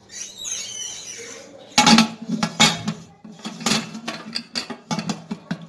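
Aluminium pressure cooker lid being handled and fitted onto the cooker: a short scrape, then a run of sharp metal clanks and clicks from about two seconds in.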